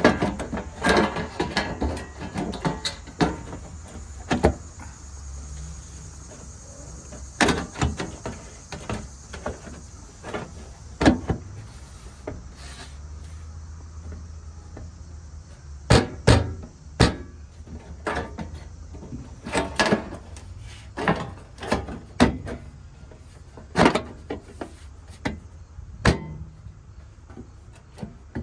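Irregular knocks, taps and clatters of sheet metal and hand tools being handled during truck body rust repair, over a low steady hum.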